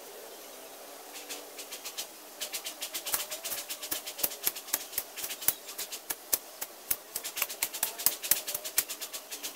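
A hand tool cutting and clearing weeds: rapid, irregular sharp clicks and snaps, several a second, starting about a second in and getting denser.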